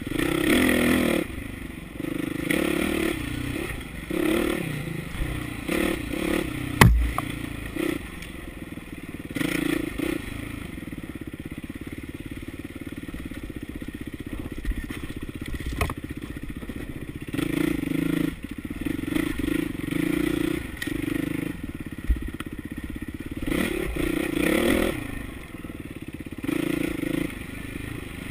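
Dirt bike engine revving up and easing off again and again on rough singletrack, with steady rattling and scraping from the bike over rocky ground. A sharp knock about seven seconds in is the loudest sound, with a smaller one near sixteen seconds.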